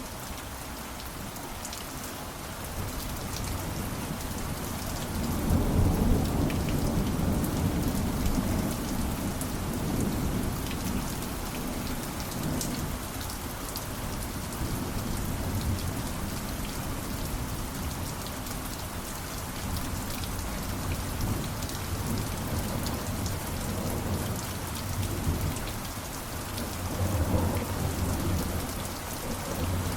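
Steady heavy rain falling, with rolling thunder: a long low rumble building about five seconds in and another near the end.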